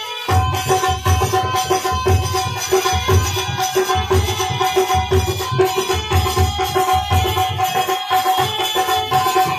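Devotional kirtan music: a hand drum keeps a steady beat under sustained melodic notes. The music breaks off for a moment right at the start.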